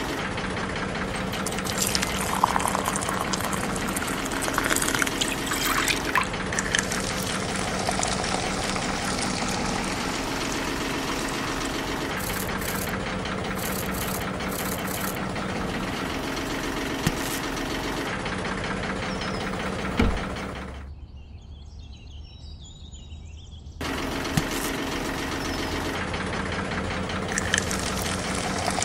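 Small DC hobby motor of a miniature fruit grinder running with a steady buzz as it chops cherries, with scattered light clicks. After a knock about twenty seconds in, the buzz drops away for about three seconds, then starts again.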